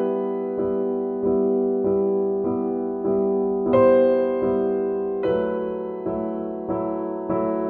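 Background music: a slow, gentle piano piece, a chord struck about every two-thirds of a second, with the harmony shifting a little under four seconds in and again past five.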